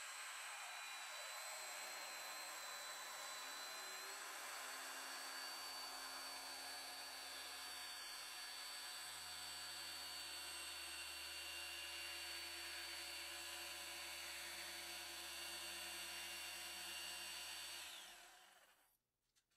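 DeWalt corded jigsaw cutting half-inch PVC trim board: steady blade rasp with a thin high whine from the motor, which cuts off about a second and a half before the end.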